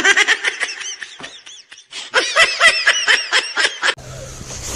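High-pitched, rapid giggling in two quick runs with a short break between them. It cuts off abruptly about four seconds in, leaving steady background noise with a low hum.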